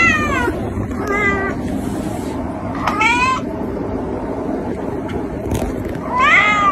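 A domestic cat meowing four times: a long call at the start, a short flat one about a second in, a rising one about three seconds in, and a rising-and-falling one near the end.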